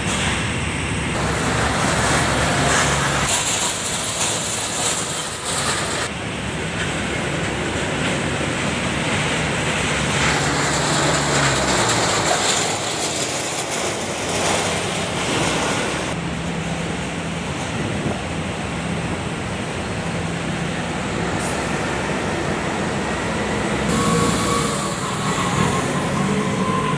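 Engines of airport buses and ground-service vehicles running, with passing vehicle noise. The mix shifts abruptly several times.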